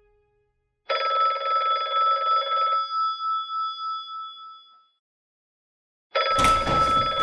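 Telephone bell ringing twice for an incoming call. Each ring lasts about two seconds and the bell rings on for a moment after it; the second ring starts near the end.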